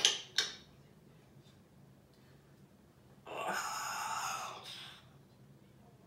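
An African grey parrot in its cage: two sharp clicks close together at the start, then, about three seconds in, a breathy hiss lasting about a second and a half.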